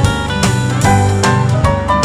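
Background music: an upbeat instrumental with plucked guitar and a steady beat.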